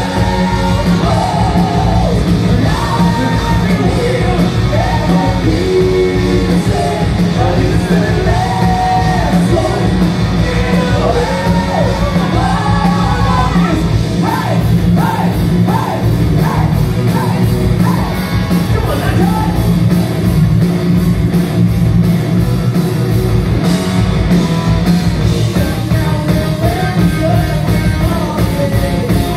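Metal band playing live: loud full-band music with sung vocal lines over guitars and drums, heard in a large hall.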